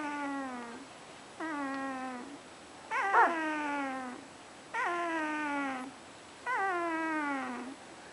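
Sleeping puppy making a whiny, pitched noise with each breath, somewhere between a snore and a squeaky sigh. It repeats evenly about every second and a half to two seconds, and each one is a drawn-out tone that sags a little in pitch.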